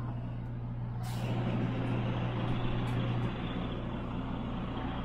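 Semi-truck diesel engine running with a steady low hum, heard from inside the cab. About a second in, a short hiss of released air, typical of the truck's air brakes.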